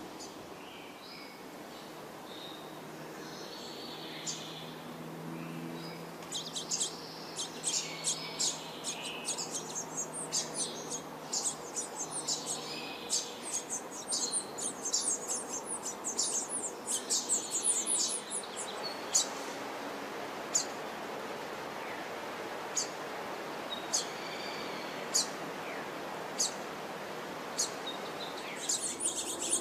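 House finch and brown-headed cowbird nestlings begging with high, short chirps. The chirps come in a dense rapid run for about ten seconds, then thin out to single chirps every second or two.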